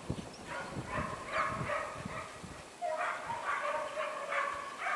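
Dog barking repeatedly: a run of short, fairly quiet barks.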